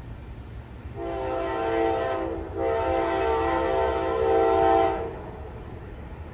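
Locomotive air horn, a Nathan K5LA five-chime, sounding a chord in two blasts, a shorter one and then a longer one, over a low steady rumble of the approaching freight train.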